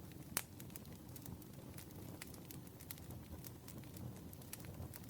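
Faint soft rustling with scattered small clicks, an ASMR fluffy-brushing trigger rubbed close to the microphone.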